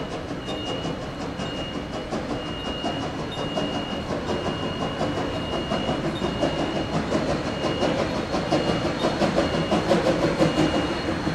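Queensland Rail BB18¼ class steam locomotive approaching under steam, with a fast, even beat of exhaust chuffs over the rumble of the train, growing louder as it nears.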